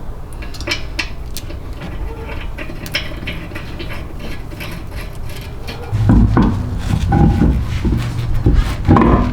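Light metallic clinks and taps of tools and suspension parts being handled, over a low hum; from about six seconds in a louder low rumbling with heavier knocks.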